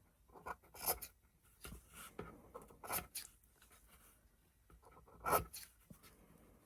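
Scissors snipping a row of short slits into the edge of fabric, with rustling as the material is handled. Several irregular snips; the loudest comes about five seconds in.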